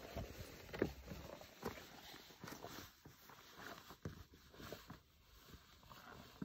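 Boots stepping and scuffing on rock during a scramble: a faint, irregular run of scrapes and knocks, the sharpest about a second in.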